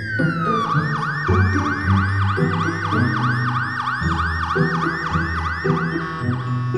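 Ambulance siren: a wail tone slides down, then switches to a fast yelp of about three rises and falls a second, stopping shortly before the end. Background music plays underneath.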